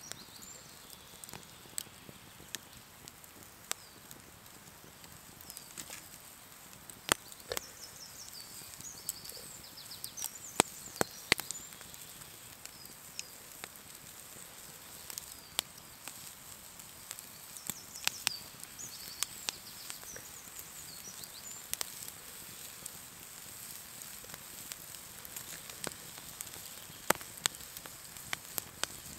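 Wood campfire crackling, with irregular sharp pops from the burning logs. Small birds chirp faintly at times in the background.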